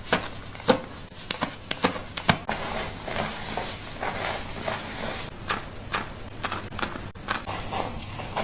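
Irregular soft taps and clicks, several a second, from hands and tools working on hair and scalp during a scalp-care treatment.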